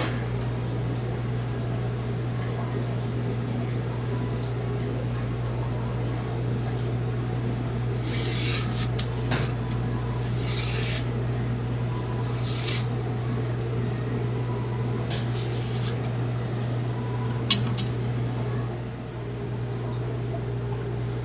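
A Blue #2 steel santoku blade makes four short scraping strokes, each about a second long. A sharp click falls between the first two strokes and another comes near the end, all over a steady low hum.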